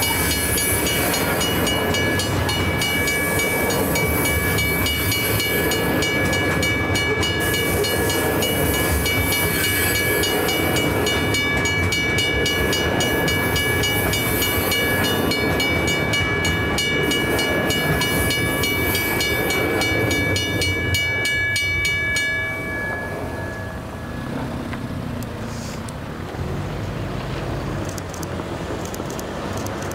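Federal Signal mechanical level-crossing bell ringing in rapid, even strikes over the rumble and wheel clatter of passing railway hopper wagons. The bell stops a little over two-thirds of the way through, and the quieter rolling of the train carries on after it.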